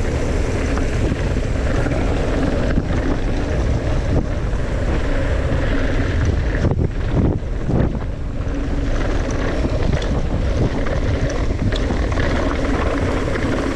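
Wind buffeting the handlebar camera's microphone and knobby tyres rolling over loose gravel as a YT Capra mountain bike descends a dirt road, with the rattle and knocks of the bike over stones.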